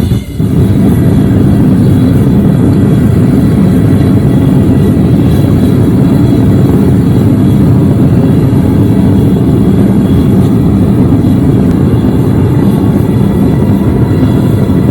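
Single-burner propane forge burning at full flame, a loud, steady rushing noise from the burner. The sound drops out for a moment just after the start, then carries on unchanged.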